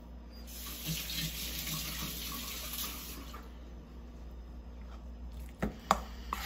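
Water running for about three seconds, like a tap left on, then a few sharp clinks of a fork against a stainless steel bowl near the end.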